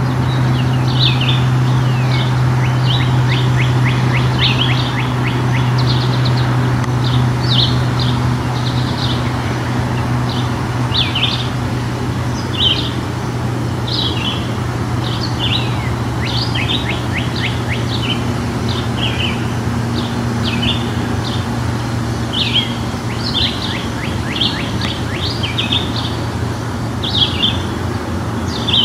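Small songbirds chirping, many short high notes in quick runs throughout, over a steady low hum and a constant background rumble.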